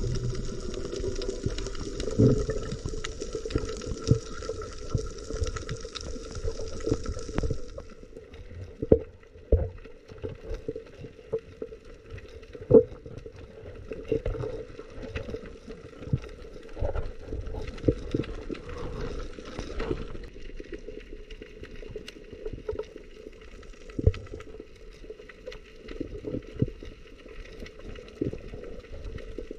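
Water sloshing and gurgling around the camera, with many scattered sharp clicks and knocks over a faint steady hum. A high hiss stops about eight seconds in.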